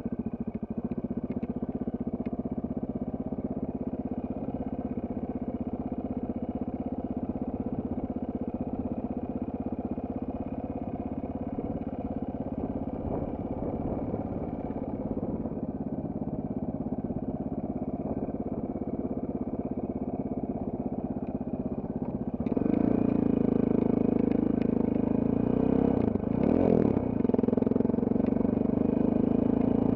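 Off-road trail motorcycle engine running at a steady speed. About three-quarters of the way in it picks up, louder and slightly higher in pitch, then dips briefly and comes back a few seconds later.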